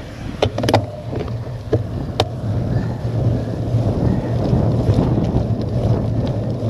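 Wind rumbling over the handlebar-mounted camera's microphone and tyres rolling on tarmac as a cyclocross bike gathers speed, growing a little louder throughout. A few sharp clicks come in the first couple of seconds.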